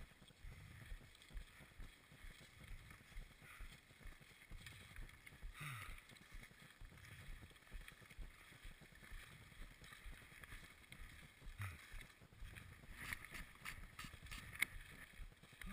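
Faint crunching of snowshoe footsteps on packed snow, in an uneven run of soft thuds, with a few sharper clicks near the end.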